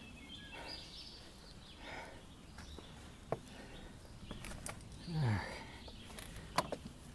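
A hiker's footsteps and breathing, with a few sharp taps, and a short sigh whose pitch falls about five seconds in.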